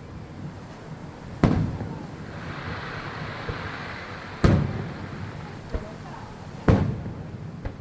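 Aerial fireworks bursting: three loud booms about a second and a half, four and a half and nearly seven seconds in, each with a rumbling echo, and a spell of crackling between the first and second.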